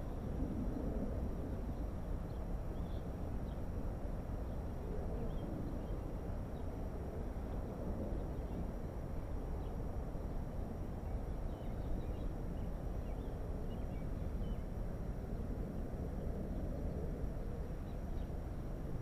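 Steady wind rumble on the microphone and tyre noise from a bicycle riding over paving stones and an asphalt path, with a few faint high bird chirps.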